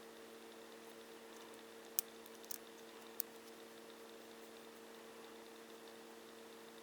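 Steady low electrical hum, with three short sharp clicks about two to three seconds in.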